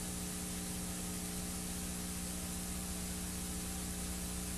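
Steady hiss with a low electrical hum and its overtones: the background noise of a blank stretch of recording, with no other sound.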